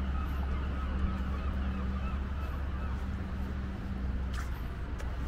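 Steady low rumble and hum of outdoor ambience, with a few faint bird calls over it and a brief click about four seconds in.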